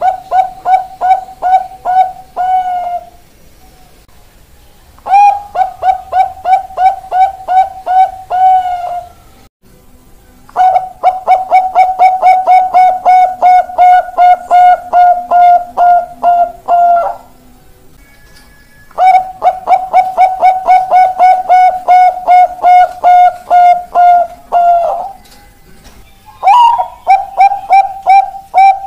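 Zebra doves (perkutut Bangkok) cooing in loud phrases of rapid repeated coos, about three to four notes a second, each phrase ending on a drawn-out final note. Five phrases follow one another with short pauses; the longest comes in the middle.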